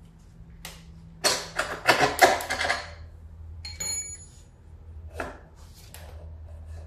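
Metal parts and tools clattering in a quick run of clicks and rattles, then a single clink of a small metal piece that rings briefly, followed by a couple of knocks.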